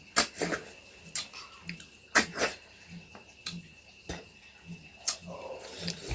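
Eating noises from a snail curry meal: irregular sharp clicks and smacks, about ten of them, some with short sucking smears, as snails are sucked out of their shells.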